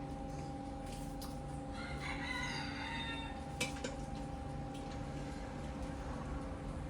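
A long bird call of about a second and a half, falling in pitch toward its end, over a steady hum with a few held tones. A sharp click comes a little after the call.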